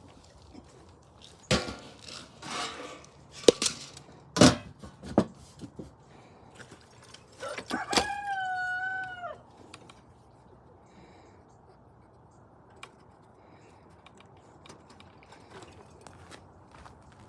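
A rooster crows once about halfway through: a long held call that drops in pitch at the end. Before the crow there are a few sharp knocks and short scuffling noises.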